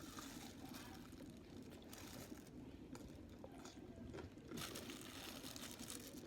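A person chewing and crunching food close to the microphone, with scattered short crunches.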